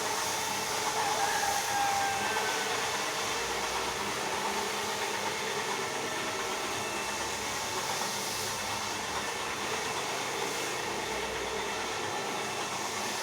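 Rotary floor polisher running steadily with its brush scrubbing a wet carpet: an even motor hum mixed with a constant brushing hiss.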